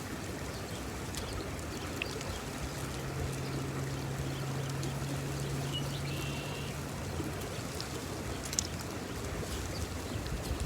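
Creek water running steadily, with a low steady hum for a few seconds in the middle.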